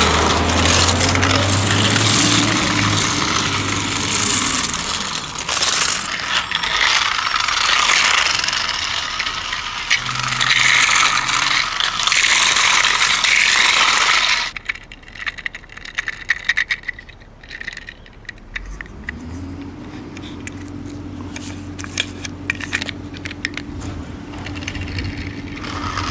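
Motorised toy dinosaur truck driving over plastic track pieces: its gears whirring and its plastic wheels clattering and scraping densely, loud at first. About halfway through it drops to scattered clicks, then a steady low motor hum comes in.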